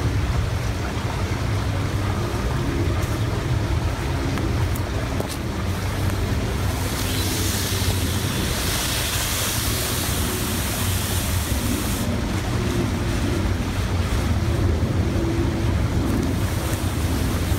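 Steady rushing noise of wind buffeting the microphone over a running creek. About seven seconds in, a louder, hissing swish of nylon tarp fabric runs for about five seconds as the tarp is pulled into its snakeskin storage sleeve.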